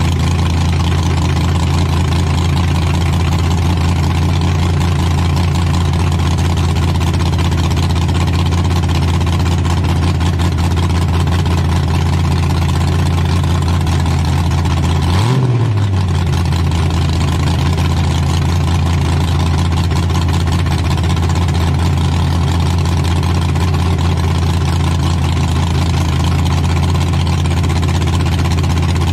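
Demolition derby stock truck's engine idling steadily, heard from inside the stripped cab, with one short rev blip about halfway through.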